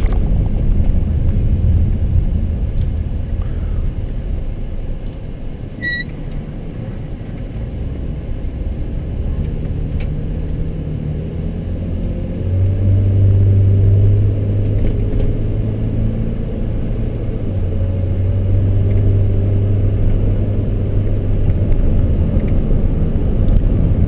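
Toyota Sienna minivan driving, heard from inside the cabin: a steady low engine and road rumble. From about halfway through it grows louder and its pitch rises as the van speeds up. A single short beep sounds about six seconds in.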